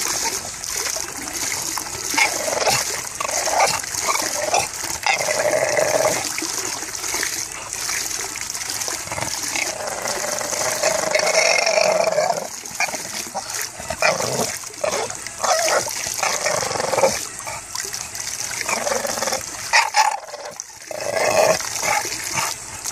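English bulldog grumbling and whining in repeated moans, one drawn out for about two seconds around the middle. Under it runs a steady splash of water spilling over the hot tub's edge.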